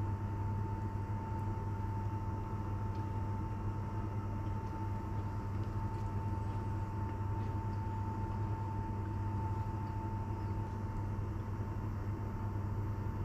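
Steady machine hum with a constant high whine over it, unchanging throughout, and a few faint light clicks of a fork and knife on a ceramic plate.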